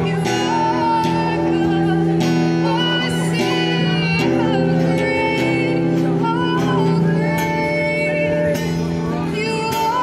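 A woman singing a worship song into a microphone, amplified through a small speaker, with her acoustic guitar accompanying her.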